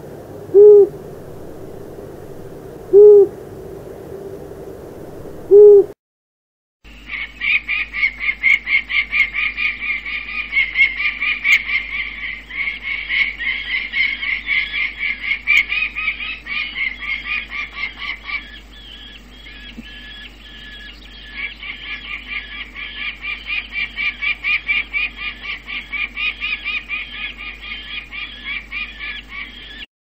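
Long-eared owl hooting: a low single hoot three times, about two and a half seconds apart. After a short break, a peregrine falcon's rapid repeated call, about four notes a second, runs on with a brief lull about two-thirds of the way through.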